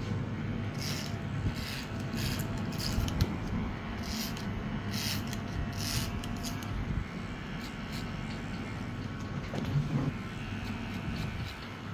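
Cordless electric hair clipper running with a steady buzz, with short crisp bursts as its blade cuts hair against a comb at the nape, mostly in the first half.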